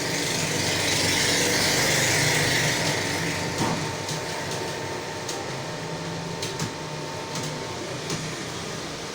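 Typing on a computer keyboard: scattered sharp key clicks, clearer in the second half, over a steady mechanical room hum that swells louder during the first few seconds.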